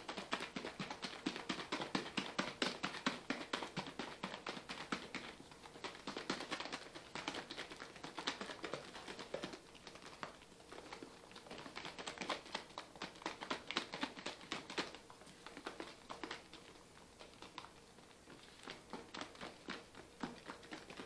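Heavy whipping cream and sugar-free Jell-O sloshing inside a small lidded plastic container shaken hard by hand, a rapid rhythm of several strokes a second that eases for a few seconds past the middle. The liquid can still be heard, so the cream has not yet thickened; it is shaken until it can't be heard anymore.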